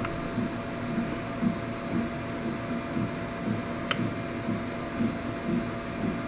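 Ultimaker-clone 3D printer running, its stepper motors humming and whirring in an uneven pulsing pattern under a faint steady tone, with a short click about four seconds in.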